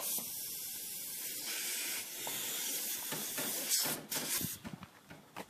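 Compressed air hissing steadily for nearly four seconds, then cutting off abruptly.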